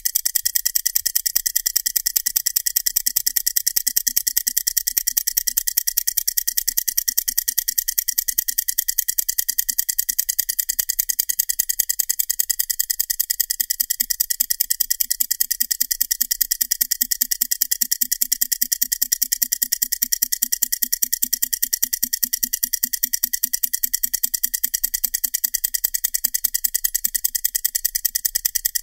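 Heuer-Leonidas Trackmaster 8042 and 8047 mechanical stopwatches running together: a rapid, even ticking from their escapements.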